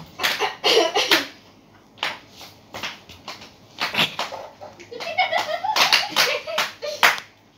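High-heeled shoes tapping and clicking irregularly as a young girl dances in them. A young girl's voice comes in shortly after the start and again from about five seconds in.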